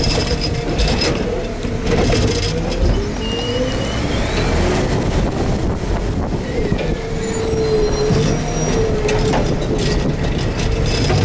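Garbage truck's engine and hydraulic packer running, with a whine that wavers up and down in pitch and a brief thin squeal about three seconds in. Wind buffets the microphone.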